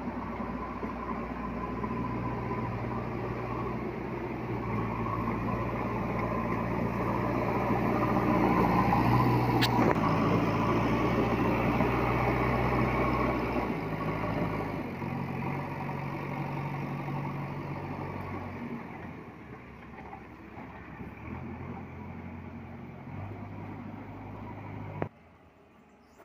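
JCB 3DX backhoe loader's diesel engine running steadily as the machine drives, growing louder about a third of the way in and easing off past the middle. The sound cuts off abruptly near the end.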